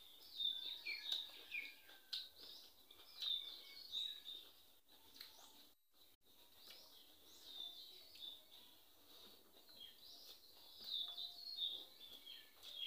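Small birds chirping over and over, quick high chirps and short sliding notes, with faint clicks beneath.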